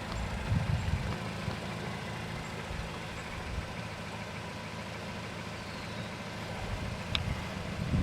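Nissan Cube Z12's four-cylinder engine running steadily with a low rumble, its exhaust exiting straight from the centre resonator through a tip with no rear muffler.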